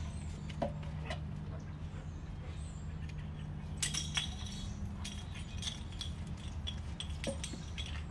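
Light metallic clinks and jingles, a cluster about four seconds in and a few scattered ones near the end, over a steady low hum.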